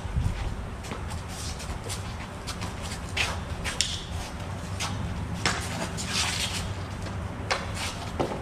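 Footwork scuffs and short sharp noises from two people sparring with training blades, over a steady low rumble.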